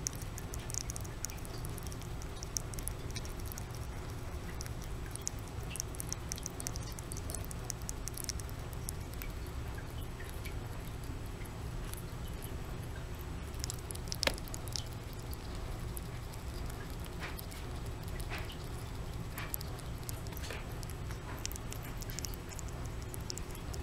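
Pet rat eating wet stew from a bowl: many small, quick clicks of licking and chewing, with one louder click about fourteen seconds in, over a steady low hum.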